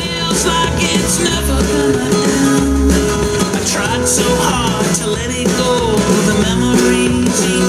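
Rock-pop song in an instrumental passage, with guitar over a steady drum beat, played back through a Kenwood LS-F4 three-way bookshelf speaker.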